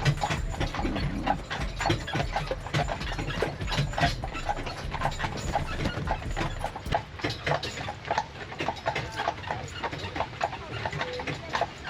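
Hooves of a carriage horse clip-clopping, heard from the horse-drawn carriage, with a low rumble underneath that fades about eight seconds in.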